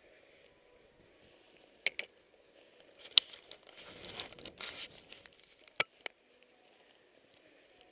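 Close rustling and crinkling of ski-jacket fabric and powder snow brushing against a goggle-mounted camera, with a few sharp knocks on the camera. There are two quick knocks about two seconds in, a loud one just after three seconds and another near six, with the rustle in between.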